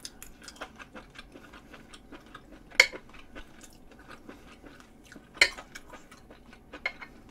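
Close-miked chewing and wet mouth sounds, with a metal fork clinking sharply against the dishes three times, about three, five and a half, and seven seconds in.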